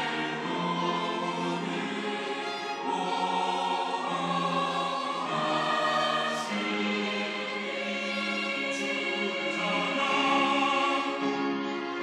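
Mixed church choir of men and women singing a sacred anthem in parts, with sustained chords and violins accompanying.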